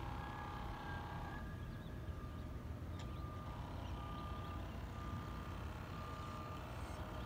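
RC model boat's motor whining steadily, then cutting off about a second and a half in as the boat coasts to a stop. Afterwards a faint beeping tone repeats at an even pace over a low rumble.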